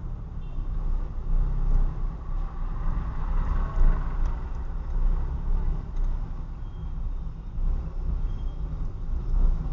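A Mitsubishi Mirage's engine and tyre noise on the road, a steady low rumble heard inside the car's cabin through the dashcam's built-in microphone, briefly louder about four seconds in.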